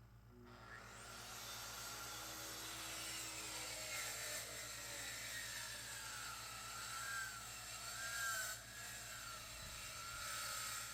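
Electric power saw spinning up about half a second in, then running steadily through wood. Its whine wavers and dips a few times in the second half, as the load on the blade changes during the cut.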